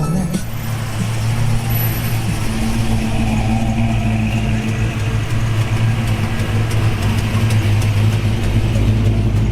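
A car engine running steadily close by, with a constant low hum.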